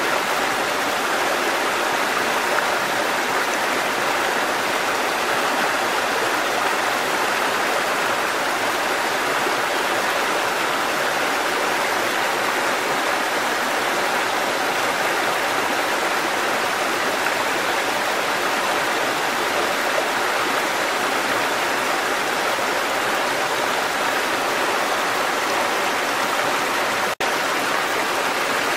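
Waterfall: a steady, even rush of falling water, with a momentary break near the end.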